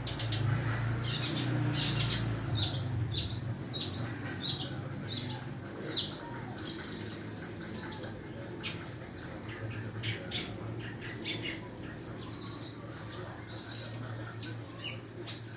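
Long-tailed shrike (cendet) calling in a run of short, high chirps, several a second, over a steady low hum.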